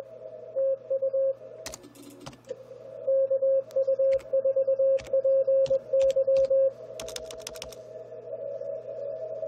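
Morse code (CW) from an Icom IC-756ProIII ham radio transceiver: a steady mid-pitched tone keyed in quick dots and dashes, sending most densely from about three seconds in to nearly seven, then fainter. Short runs of computer keyboard clicks come about two seconds in and again near seven seconds, with a low hum underneath.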